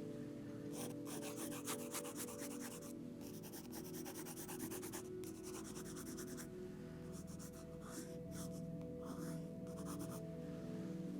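Quick scratchy sketching strokes of a drawing tool on paper, coming in runs of a second or two with short pauses between, over soft music with steady sustained tones.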